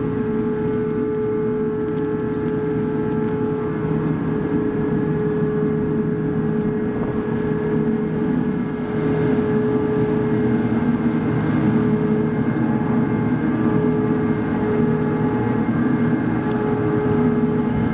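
Car ferry's engines and machinery running steadily: a continuous drone with several held hum tones over a low rumble, growing slightly louder about nine seconds in.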